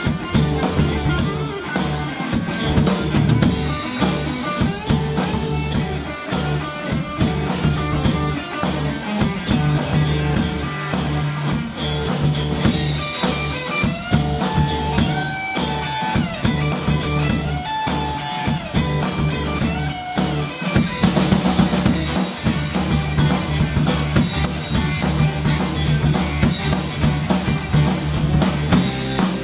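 Live instrumental rock jam by a small band: electric guitars over a drum kit with steady kick and snare hits, the guitars holding and bending notes around the middle.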